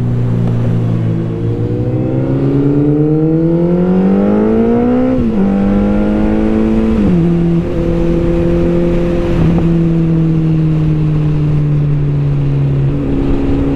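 Sport motorcycle engine accelerating hard: its pitch climbs for a few seconds, drops at a gear change about five seconds in and again about seven seconds in, then holds nearly steady and eases near the end, over steady wind and road noise.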